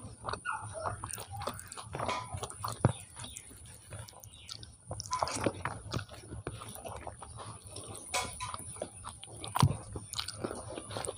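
Close-miked chewing of a mouthful of biryani rice and chicken, with irregular mouth clicks. Fingers mix rice on the plate between mouthfuls.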